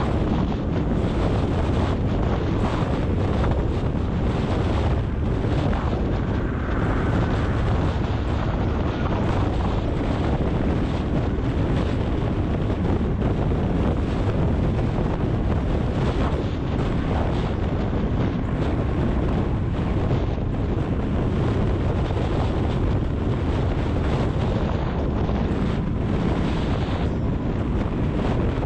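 Steady road and wind noise from a car driving along: a constant low rumble with hiss, with wind buffeting the microphone.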